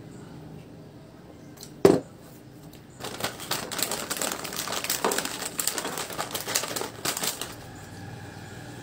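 A drinking glass set down on a table with one sharp knock about two seconds in, then several seconds of dense crinkling of plastic or foil snack packaging being handled.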